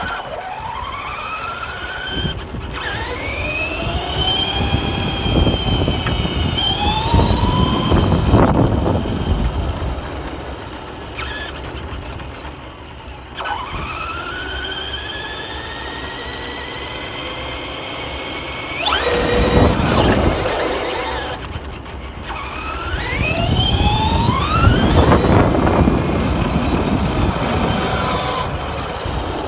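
An RC car's motor whining up in pitch each time it accelerates, about five runs one after another, over the rush of its tyres on coarse asphalt, heard from on board the car.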